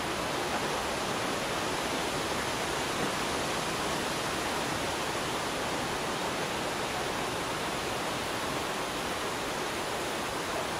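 Steady, even rushing hiss with no distinct events, unchanging throughout.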